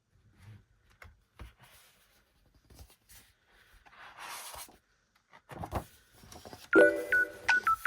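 Soft handling of a photo book, with pages rustling as they are turned about four seconds in. Near the end a loud electronic melody of short beep-like notes starts.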